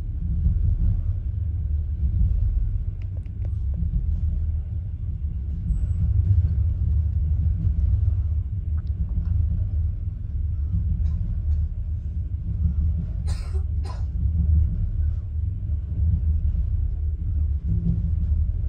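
Steady low rumble of a passenger train running along the track, heard from inside the carriage. Two short sharp noises come close together about two-thirds of the way through.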